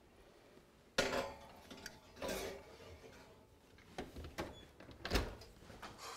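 A glass baking dish set down on a metal oven rack with a sharp clank, then scraping and clicks as the rack is slid in, and the oven door shut with a heavy thump near the end.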